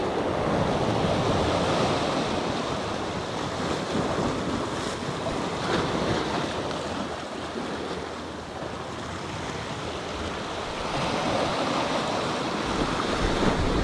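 Sea waves washing onto the shore, with wind on the microphone. The wash swells and eases, loudest in the first few seconds and again near the end.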